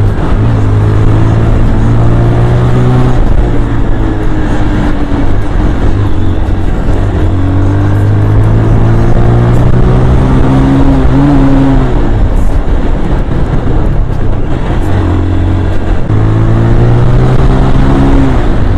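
Bajaj Pulsar 180's single-cylinder engine running under way, its pitch falling and rising a few times as the throttle is eased and opened again, over a steady rush of wind and road noise.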